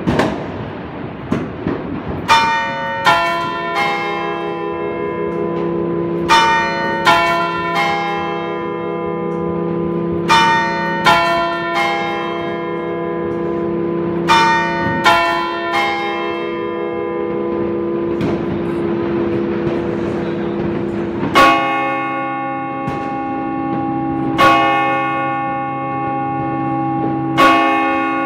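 Large bronze church bells swinging and ringing, heard close up in the belfry. At first strokes come in pairs about every four seconds; about two-thirds of the way in, a deeper-sounding bell takes over with single strokes about every three seconds, its long hum carrying between them.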